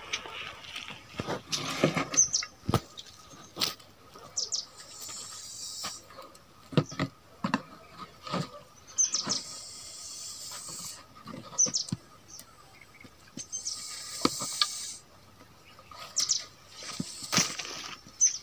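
Scattered taps, knocks and scrapes of a stick on dry soil and plants as a snake is steered toward a plastic bottle. Short bird chirps and a few second-long bursts of hiss run through it.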